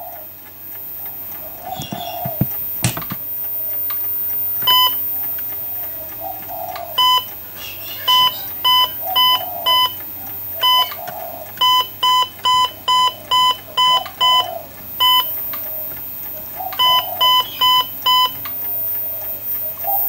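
Old Watson Victor ECG monitor's beeper giving short, high electronic beeps, the heartbeat tone that goes with the spikes on its trace. The beeps start about five seconds in and come in irregular runs, at times about two a second.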